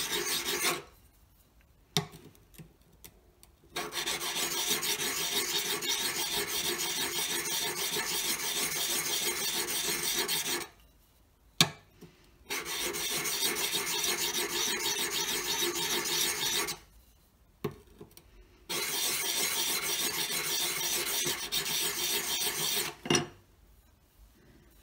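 Steel bevel of a skew chisel rubbed in small circles on a wet metal card file, a steady rapid scraping that honing produces as it works the burr back and forth along the edge. The scraping comes in long stretches broken by short pauses, each with a sharp click as the tool is lifted or set back down.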